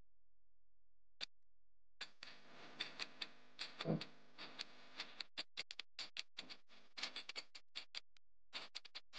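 Countdown timer sound effect: a run of sharp ticks and clicks, several a second and unevenly spaced. A single click comes about a second in, the ticking gets denser from about two seconds in, and a short pitched sound is heard around four seconds in.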